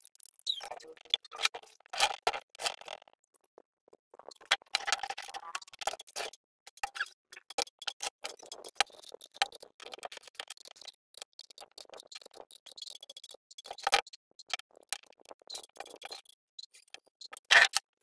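Hand socket ratchet clicking in quick runs while turning bolts on a portable generator, with metal tools clinking. Two louder metal clanks, the second near the end.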